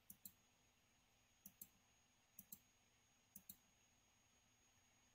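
Computer mouse button clicking faintly four times, roughly a second apart, each a quick pair of clicks.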